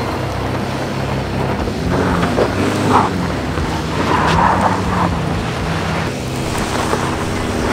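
2021 Subaru Forester's 2.5-litre flat-four engine running under load as the car climbs a steep loose-dirt hill in Sport mode with traction control off, tyres scrabbling in the dirt. Wind noise on the microphone.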